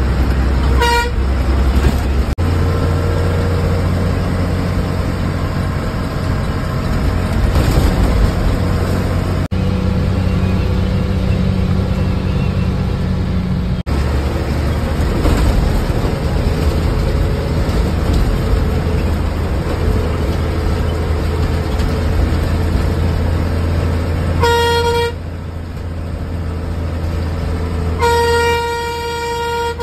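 Bus engine running steadily under load, heard from inside the driver's cab. The horn sounds three times: a short toot about a second in, another short one near the end, and a longer blast of about two seconds just after it.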